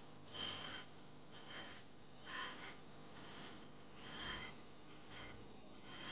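Faint, short breaths or sniffs, about six of them, a second or two apart.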